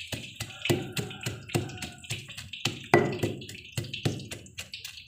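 Pestle pounding and grinding shallots, garlic and chillies in a stone cobek mortar: quick, irregular knocks, about four to five a second, with one harder strike about three seconds in.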